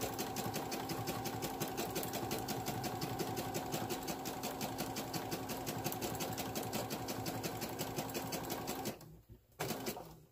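Brother computerized sewing machine sewing a wide serpentine stitch through quilted fabric and batting, its motor humming under a rapid, even rhythm of needle strokes. The machine stops about nine seconds in, followed by a click or two.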